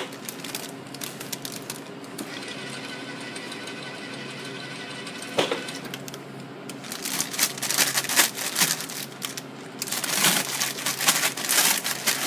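Clicking, crinkling and clattering of a plastic snack packet and nacho tray being handled at a nacho cheese dispenser, over a steady electrical hum. A steady machine whir runs for a few seconds in the middle, ending with a sharp click, and the crinkling and clicking grow denser in the second half.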